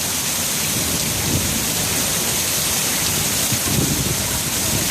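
Heavy downpour of rain pouring down in a steady, loud hiss, with a low irregular rumble underneath.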